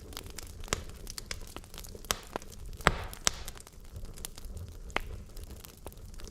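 Wood logs burning in a fireplace, crackling with irregular sharp pops over a low steady rumble of the flames; the loudest pops come about three seconds in, with another near the end.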